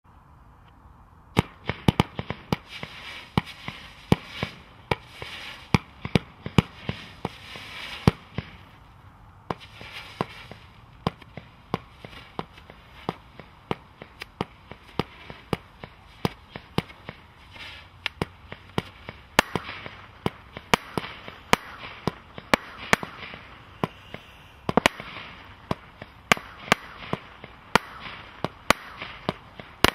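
Celtic Fireworks 'The Tardis', a 126-shot single-ignition firework cake, firing: a long run of sharp bangs with hissing between them, starting about a second and a half in and coming faster in the second half.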